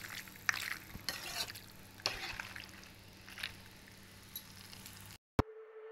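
A utensil stirring and scraping through creamy white sauce macaroni in a frying pan, several soft strokes in the first few seconds. The sound cuts off about five seconds in, followed by a single click and a faint steady tone.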